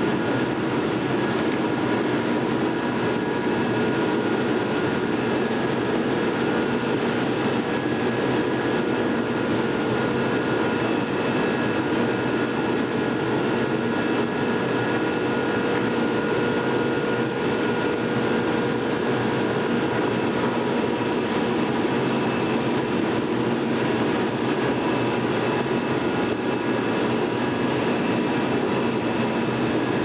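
Steady loud drone of steel melt-shop machinery at a ladle furnace: a dense rumbling noise with several faint steady hums over it, not changing.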